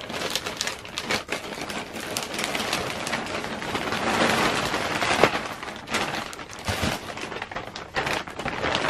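Tissue paper and a plastic bag crinkling and rustling as they are handled, a dense crackle of many small ticks, loudest about four to five seconds in.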